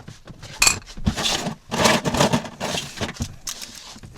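Two small pairs of scissors being picked up and handled, with a run of light clinks and rustling clatter.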